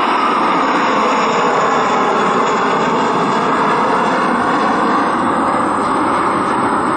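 A McDonnell Douglas MD-90-30's twin rear-mounted IAE V2500 turbofans at climb thrust just after takeoff: a loud, steady rush of jet noise as the airliner climbs away overhead.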